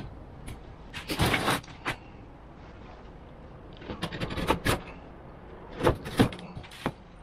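Utility knife blade scoring plasterboard along a marked line, in short rasping strokes: one longer stroke about a second in, then a run of quicker strokes from about four seconds in.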